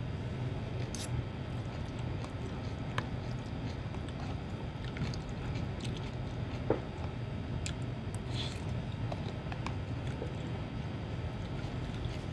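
Chewing mouthfuls of fried noodles, with a few short clicks of a metal spoon and fork against a plastic food container, over a steady low hum.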